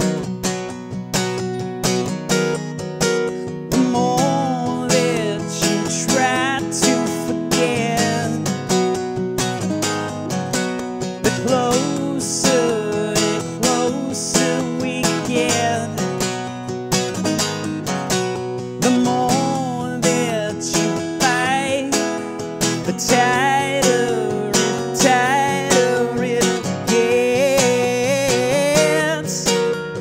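Acoustic guitar strummed steadily, with a man singing over it from about four seconds in.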